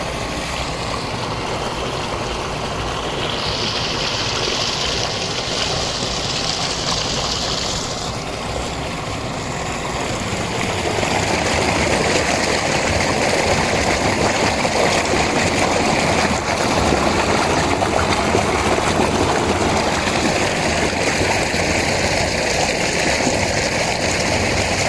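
Steady rushing of water. There is a high hiss from about three to eight seconds in, and the rushing grows louder about eleven seconds in.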